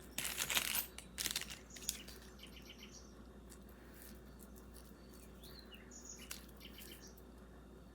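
Beaded necklace with faux pearls and gold metal parts clinking and rattling as it is handled, a few quick jingles in the first two seconds, then only faint small clicks.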